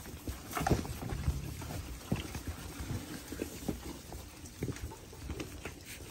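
Piglets shuffling and rooting in straw bedding close by: irregular rustling and scuffing with short, soft grunts.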